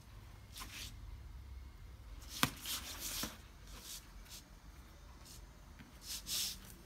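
Cat playing with a cloth mat on a tile floor: scattered scratchy rustles of claws and fur on the fabric, with one sharp click about two and a half seconds in.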